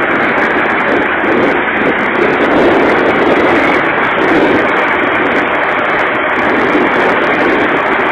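Heavy machinery engines running steadily while other machines try to pull a Cat excavator out of quicksand.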